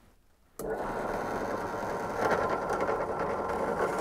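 Benchtop drill press switched on about half a second in, its motor and chuck then running steadily with a steady whine; the sound grows louder about two seconds in.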